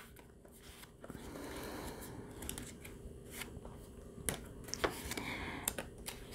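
Sketchbook pages handled and turned by hand: faint paper rustling with a few soft clicks.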